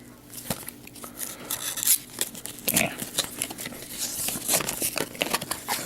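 Plastic bubble wrap crinkling and rustling as it is pulled off a boxed cube, with many small crackles and taps.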